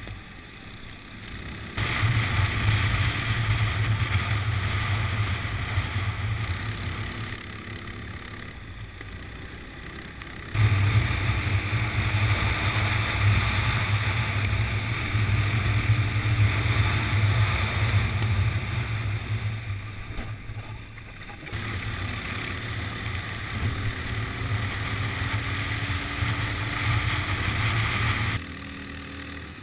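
Go-kart engine heard from on board, running hard down the straights in loud stretches that drop away sharply several times as the throttle is lifted for corners, then pick up again.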